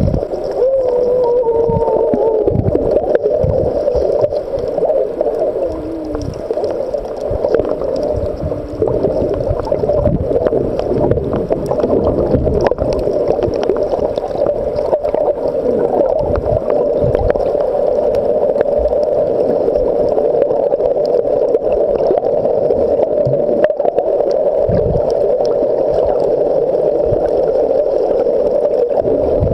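Unidentified underwater sounds in the Red Sea. Over the first few seconds come a few falling, wavering tonal calls, then a steady, dense crackling hum fills the rest.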